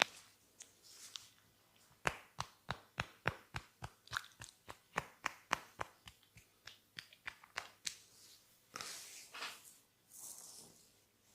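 Massage hands on the head and skin making a rapid, even run of sharp snaps, about three or four a second, then a few seconds of rubbing.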